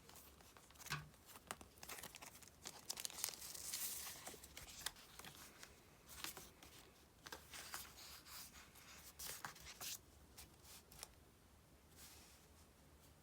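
Paper stickers peeled from their backing sheet, quiet tearing and crinkling with small taps and rustles, and one longer peel about three to four seconds in.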